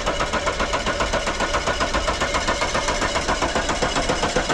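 Fiat 500X engine being cranked by its starter motor, turning over in a steady, even rhythm without catching: the engine does not start.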